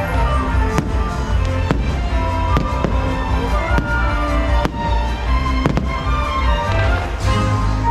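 Fireworks bursting over loud show music: sharp bangs about once a second, six or seven in all, against a steady orchestral holiday score.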